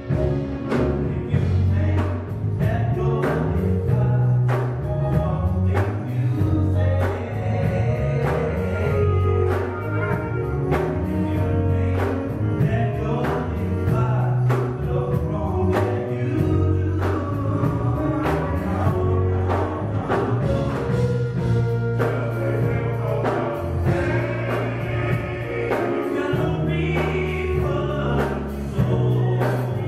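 Men's gospel group singing with a live band: drums keeping a steady beat under a prominent bass line and keyboard.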